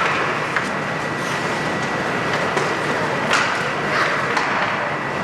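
Ice-rink game noise: a steady wash of arena sound with several short, sharp scrapes and clacks of skates and sticks on the ice, the clearest a little over three seconds in and about four seconds in.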